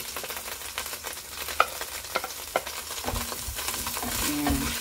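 Minced garlic sizzling in hot oil in a pot, with a wooden spoon stirring it and knocking sharply against the pot several times, the loudest knock about one and a half seconds in.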